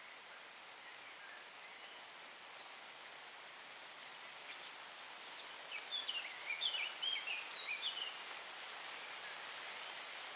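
Steady hiss of light rain outdoors, with a bird singing a quick run of short chirps about halfway through.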